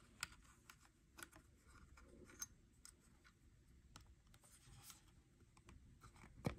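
Faint small clicks and scrapes of a metal retaining ring being worked by hand onto the end of an Oral-B iO electric toothbrush handle, with a sharper click near the end.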